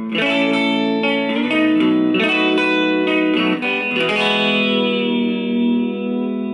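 Fender Jaguar electric guitar played clean through a small test amplifier, with the fuzz pedal bypassed. A few chords change about every second, then from about four seconds in a last chord is left ringing and slowly fading.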